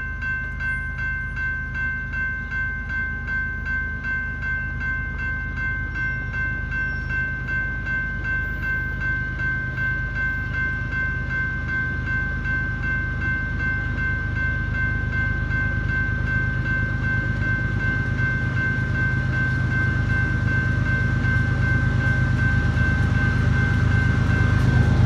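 Railroad grade-crossing warning bell ringing steadily in an even pulse, while an approaching diesel freight locomotive's low rumble grows louder toward the end.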